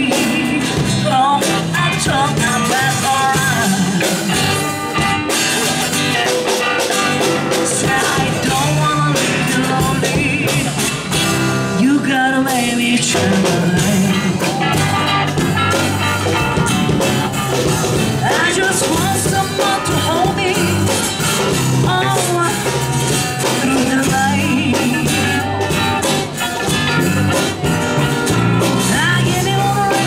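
Live band playing an improvised rock-blues jam, an electric bass guitar line locked in with a drum kit, with melodic lines above.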